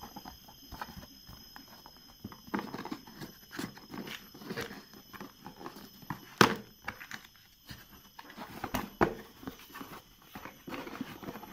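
Cardboard router box being handled and opened by hand: scattered taps, scrapes and rustles, with a sharp click about six and a half seconds in and another about nine seconds in.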